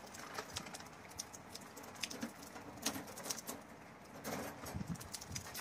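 Rain pattering, with many sharp, irregular drop ticks and a few soft low knocks about four to five seconds in.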